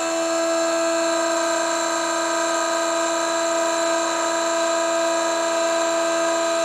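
End mill in a Bosch 1617 router spindle milling a 316 stainless steel block at 5000 RPM and 0.02" depth of cut, making a steady whine of several stacked tones.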